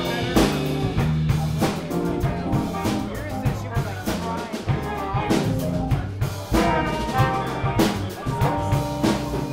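Live funk-jazz band playing: a brass section of trombone, baritone saxophone and trumpet holding notes over a drum kit, keyboard and electric guitars, with the drums keeping a steady beat.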